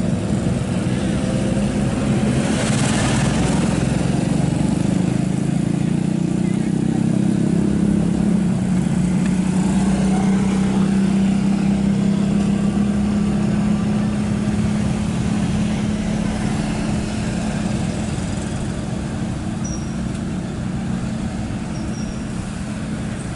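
Steel-drum road roller's engine running steadily with a strong low hum while the roller works over the gravel road, growing slightly quieter near the end.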